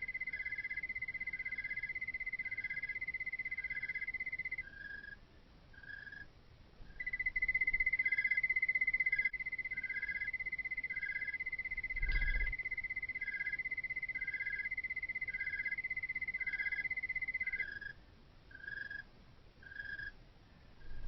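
Crickets singing at night: one holds a continuous high trill that breaks off about four seconds in, resumes a couple of seconds later and stops a few seconds before the end, while another chirps in short pulses about twice a second throughout. A single soft thump about twelve seconds in.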